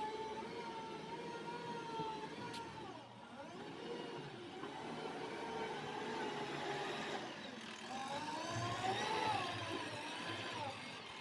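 Heavy machine's diesel engine running, its pitch dropping about three seconds in, then rising and falling again near the end as it is revved.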